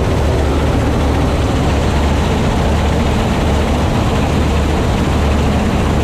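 Massey Ferguson 86 combine harvester running steadily in the field, heard from the driver's seat: a loud, even engine hum mixed with the rattle of its cutting and threshing machinery.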